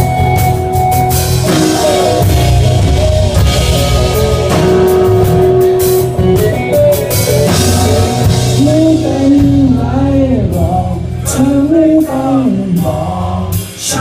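Rock band playing live: drums, bass and electric guitars, with a lead melody that bends in pitch through the second half.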